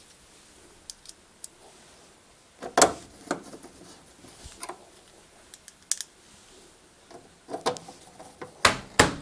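Irregular clicks and knocks of a screwdriver and the dryer's plastic grille cover being handled as its screws are driven back in, with the loudest knocks about three seconds in and near the end.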